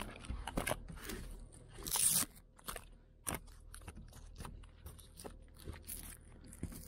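Boots crunching and scraping in snow, irregular steps and shuffles as someone walks up and crouches, the loudest crunch about two seconds in.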